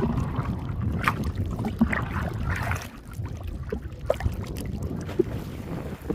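Lake water sloshing and splashing irregularly, over a low rumble of wind on the microphone.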